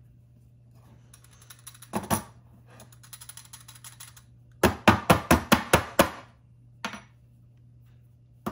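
Metal coffee basket and dosing funnel handled and knocked: a few clicks and faint scraping of grounds, then a quick run of about seven sharp metallic taps as the basket is tapped to settle the ground coffee, with a last knock or two as the funnel comes off.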